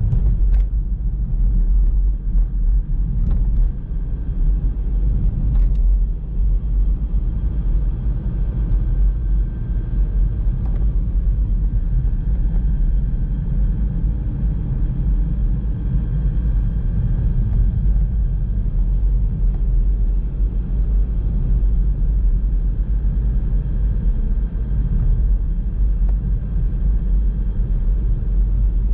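A car driving along a road: a steady low rumble of engine and tyre noise, with a few light clicks in the first several seconds.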